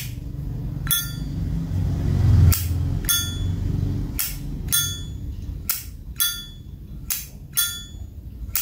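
A vintage brass Zippo lighter's lid being flicked open and snapped shut again and again: about ten sharp metallic clicks, each with a short bright ring. Its hinge and cam are original and unrepaired, and the lid is being worked to show off its sound. A low rumble of handling runs through the first half.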